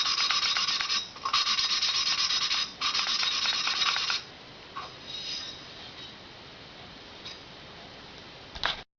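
A valve being hand-lapped into its seat in a Harley-Davidson Sportster 1200 Evolution cylinder head: it is twisted back and forth on the lapping tool against the seat with metal-cutting compound, making a gritty grinding rasp. There are three long strokes of it, then only faint scratches from about four seconds in.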